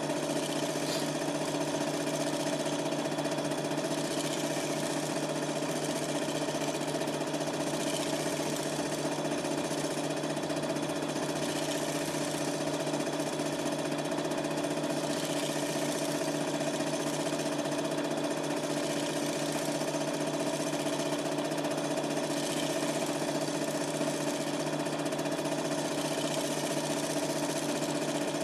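Super 8 film projector running: a steady mechanical whir with a constant low hum.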